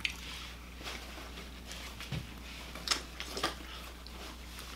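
Eating sounds of a person biting and chewing fried chicken: a few short smacks and crunches near the start and around three seconds in, with a soft thump about two seconds in, over a low steady hum.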